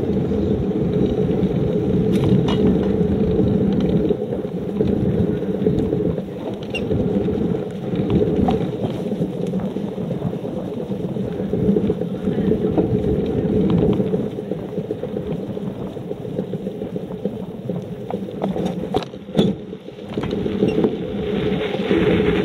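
Steady rumble of a two-wheeler rolling over the road, picked up through a handlebar-mounted camera, with light creaks and knocks from the mount and frame.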